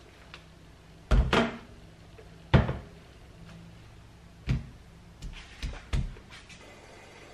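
Ingredients being set down on a kitchen countertop one after another: about six short thuds and knocks, a quick double one about a second in and the loudest about two and a half seconds in.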